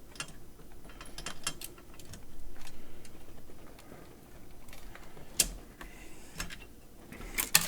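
Clicks and mechanical rattling from hand tools and metal parts as a payphone is taken apart. A denser run of quick clicks comes about two to three seconds in, a sharp knock at about five and a half seconds, and another near the end.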